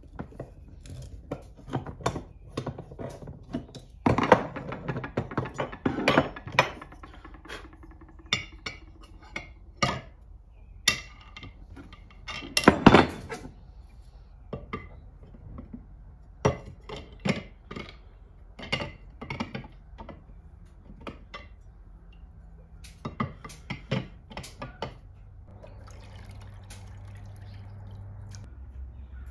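Steel parts of a plane's iron assembly and a screwdriver clicking and knocking against a glass baking dish, in a run of short sharp knocks that is loudest about halfway through. Over the last few seconds, a steady pour of vinegar from a plastic jug into the glass dish, filling a vinegar bath over the plane iron.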